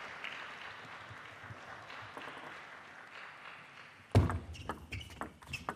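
Quiet sports-hall ambience, then about four seconds in a table tennis rally starts with a heavy thump followed by sharp clicks of the ball striking the bats and the table, a few per second.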